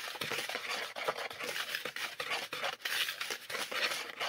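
A whisk scraping and swishing through dry bath bomb powder in a bowl in quick continuous strokes, mixing blue lake colorant into the powder.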